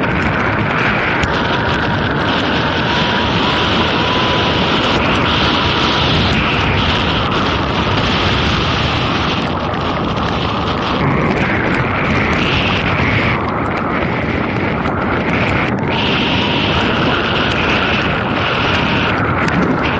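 Loud, steady wind noise buffeting the microphone of a camera mounted outside a vehicle driving on a rain-soaked highway, with road noise underneath; the hiss swells and dips every second or two.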